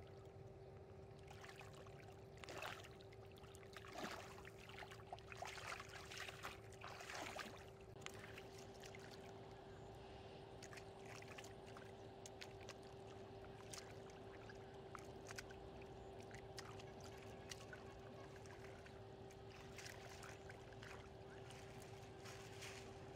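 Faint splashing and sloshing of shallow muddy water as hands grope through it for fish. The splashes come in a busy run during the first third, then fall off to small scattered drips and splashes, over a steady faint hum.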